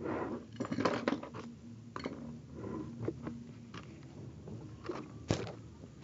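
Paper rustling and crinkling as hands handle and press flat a folded paper card on a wooden table, with a single sharp knock a little over five seconds in.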